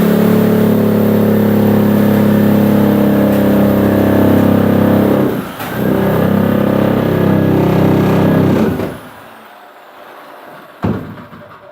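A loud motor-driven machine running steadily with a high whine. It cuts out briefly about five and a half seconds in, runs again, and winds down about nine seconds in. A single knock follows near the end.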